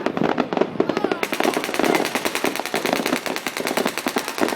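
Fireworks going off in a rapid, continuous string of sharp crackling reports, about ten a second and densest from about a second in.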